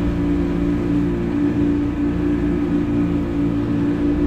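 Motorboat engine running steadily at cruising speed, a constant even drone, over a low rush of wind and water.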